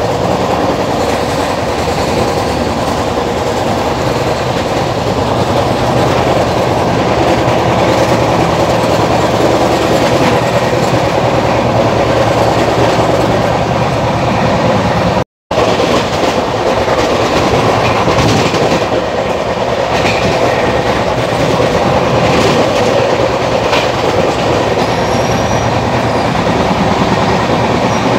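Running noise of an express train at speed heard from inside a passenger coach: a steady rumble of wheels on the rails. The sound drops out for a moment about halfway.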